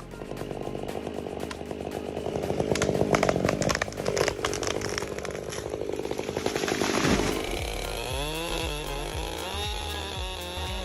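Chainsaw running at speed, cutting wood, for about seven seconds before it cuts off. Background music with wavering tones takes over near the end.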